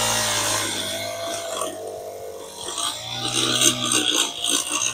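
Wild Badger walk-behind sidewalk edger's small gas engine running at speed while its blade cuts along the sidewalk edge. The steady engine note sits under a rough, hissing scrape whose loudness rises and falls.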